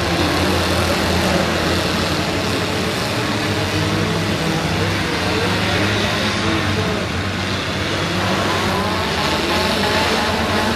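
Several four-cylinder demolition derby cars' engines running and revving together, a steady, loud mix of engine noise with no single crash standing out.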